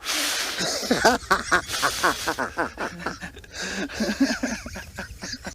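Men laughing, a rapid run of pulses that carries on for a few seconds and trails off into lighter chuckles.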